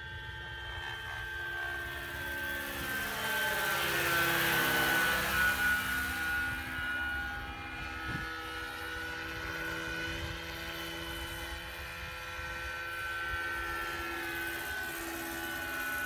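Electric-powered large-scale Vario BO 105 model helicopter in flight: a steady whine from its motor and rotors, loudest about four to five seconds in as it passes close, the pitch sweeping down as it goes by.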